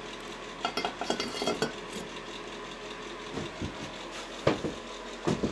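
A few light clicks and knocks over a steady background hiss: a quick cluster about a second in, then a few single knocks later on. This is the sound of handling, with hands or the camera touching things.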